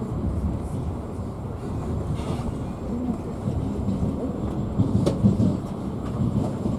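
Passenger train running, heard from inside the carriage: a steady low rumble of the wheels on the track, with a sharp click about five seconds in.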